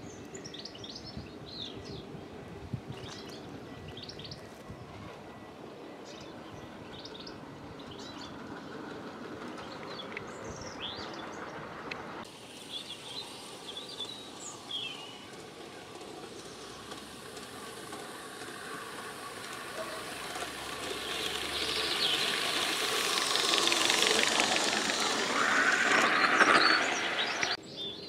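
16mm-scale garden railway train running on 45mm track, wheels rolling over the rails, with birds chirping in the first part. In the second half the rolling sound grows steadily louder as the train comes close, then cuts off suddenly near the end.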